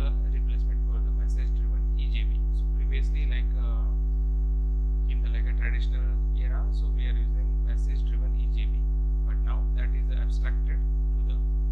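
Steady low electrical mains hum picked up by the recording microphone, with a row of higher overtones. Faint intermittent higher sounds come and go over it.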